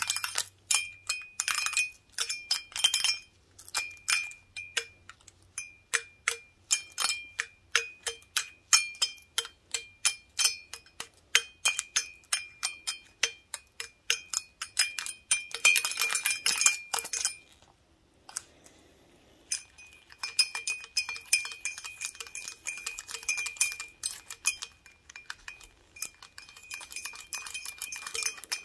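Wooden toothpicks on gloved fingertips tapping a large glass beer stein, each tick leaving the glass ringing at a high, steady pitch. The taps come irregularly, bunch into a fast flurry about halfway through, break off briefly, then resume densely with the toothpicks working inside the stein.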